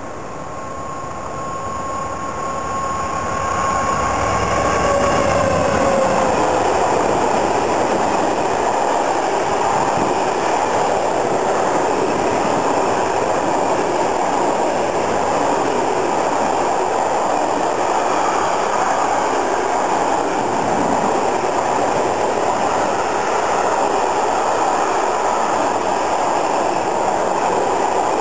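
Freight train of a Class 66 diesel locomotive hauling Rils tarpaulin-covered bogie wagons, growing louder as it approaches. A steady whine from the locomotive drops in pitch as it passes about five seconds in, then comes the continuous rumble and rattle of the wagons rolling by on the rails.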